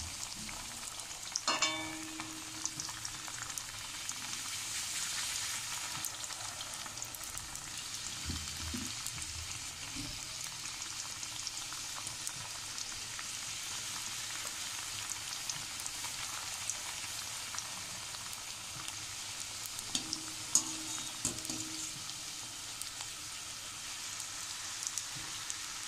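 Fuchka (puri) dough rounds deep-frying in hot refined oil in a kadai: a steady sizzle, with a few clinks of the wire skimmer against the pan, one ringing briefly about a second and a half in and another about twenty seconds in.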